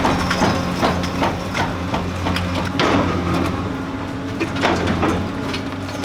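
Heavy demolition machine's diesel engine running steadily under repeated crunching and cracking crashes as a building structure is broken apart and debris falls.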